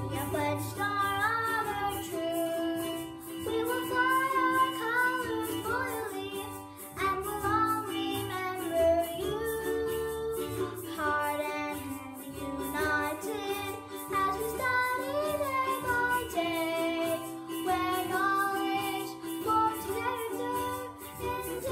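A young girl singing a school song solo over an instrumental backing track with a steady beat.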